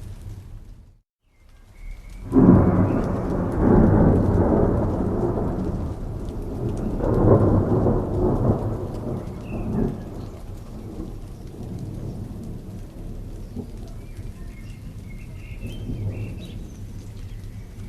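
Steady rain with a long roll of thunder that breaks in about two seconds in, swells twice and dies away over the next eight seconds. Just after the start the sound drops out to near silence for about a second.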